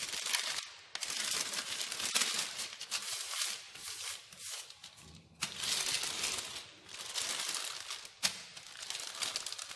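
Baking paper rustling and crinkling in repeated strokes as a wooden rolling pin rolls over it and hands press it flat on dough sandwiched between the sheets.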